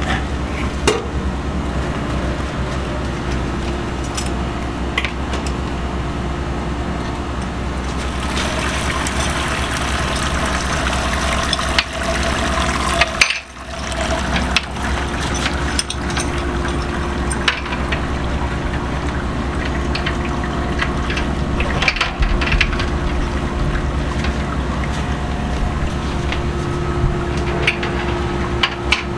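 Wort draining from a lifted mesh grain basket and splashing back into a Clawhammer Supply brew-in-a-bag kettle, a steady pouring over a low hum. Occasional metal clunks as the basket is handled on the kettle rim.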